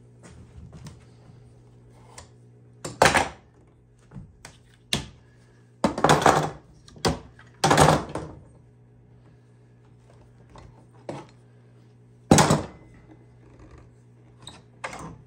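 Bar clamps being loosened off a clamped wooden panel and set down on a wooden workbench: a string of irregular clanks and knocks, the loudest about three, six, eight and twelve seconds in, over a steady low hum.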